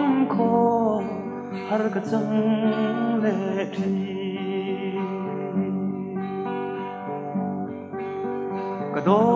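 Old Mizo love song recording: acoustic guitar plucking and strumming under a melody line, growing louder about nine seconds in.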